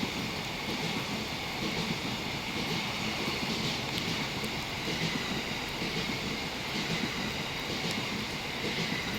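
Electric passenger train running along the line: a steady wheel-and-rail rush with a few faint clicks.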